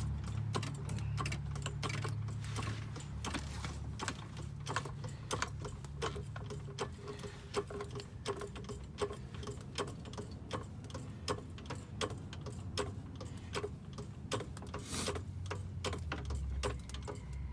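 Jack being pumped to raise the rear suspension and compress the coil spring: a steady run of clicks, about two a second, over a low steady hum.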